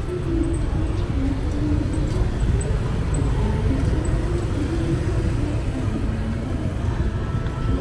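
Street traffic: motor scooters running and riding past over a steady low rumble.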